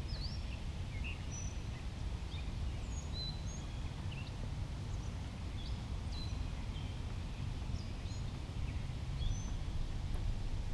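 Songbirds chirping, many short scattered calls, over a steady low rumble.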